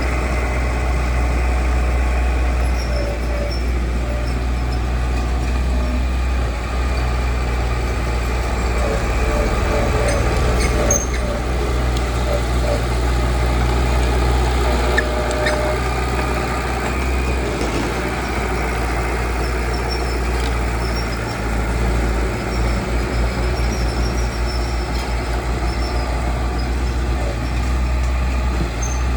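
Diesel engine of heavy earthmoving machinery running steadily with a deep drone, with a couple of faint knocks. About two-thirds of the way in, the engine note dips and pulses for a few seconds before settling again.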